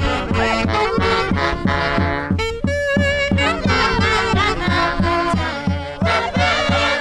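Andean herranza band music: horns play a melody over a steady beat of about three to four strikes a second.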